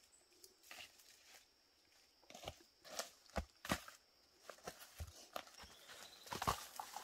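Footsteps in sandals crunching through dry leaf litter, with rustles and light knocks as bamboo shoots are picked up and handled on a pile. Irregular crunches start about two seconds in, and the loudest cluster comes near the end.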